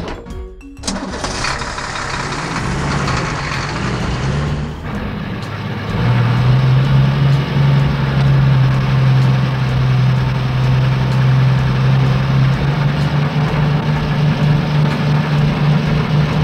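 Vehicle engine sound effect: an engine comes in about a second in and runs steadily, growing louder about six seconds in with a strong low hum that rises slightly in pitch near the end.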